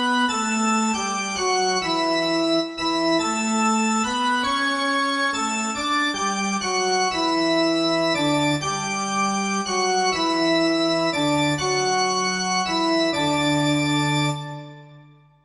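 Organ-toned keyboard music: held notes and chords with a full, bright tone, changing every half second or so, then fading out over the last second or so.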